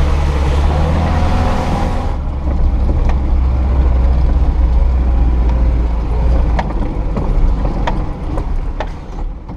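Lada Niva 2121's four-cylinder petrol engine running with a steady low drone, a rushing hiss that stops about two seconds in, and a few sharp knocks and rattles along the way; the sound fades out near the end.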